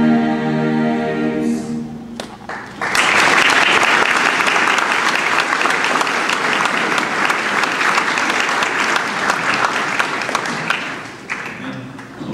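A mixed choir's final held chord ends a couple of seconds in; after a short gap the audience applauds for about eight seconds, and the applause dies away near the end.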